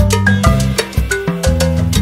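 Upbeat background music with a steady beat, a bass line and short pitched notes.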